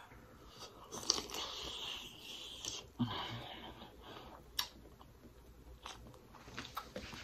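A person chewing sauce-dipped seafood close to the microphone, with wet mouth noises and a few sharp clicks about one, three and four and a half seconds in.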